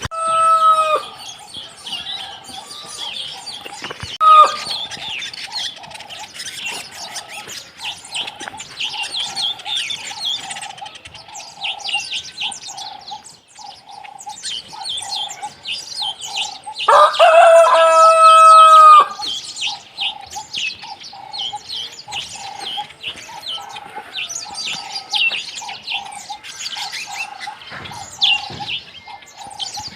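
Small birds chirping and twittering continuously around poultry at feeding. A rooster crows loudly once, a long call about two-thirds of the way through, with shorter poultry calls near the start.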